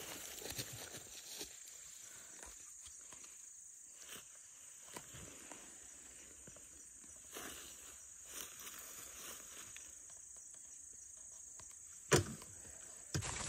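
Grass rustling and footsteps as a deer carcass is pulled onto a wheeled metal game cart, with one sharp knock about twelve seconds in. A steady high trilling of field insects (crickets) runs underneath.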